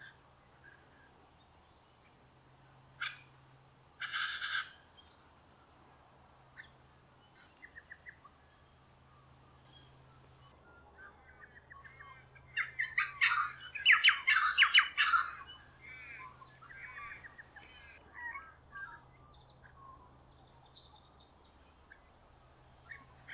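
Wild birds calling: two short calls in the first few seconds, then a loud run of rapid chattering calls around the middle, followed by scattered chirps.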